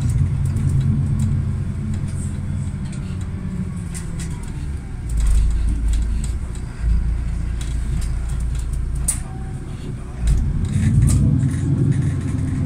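City bus heard from inside the passenger cabin: engine and road noise rumbling low, with frequent small rattles and clicks from the interior. The engine note deepens about five seconds in and rises again near the end as the bus pulls on.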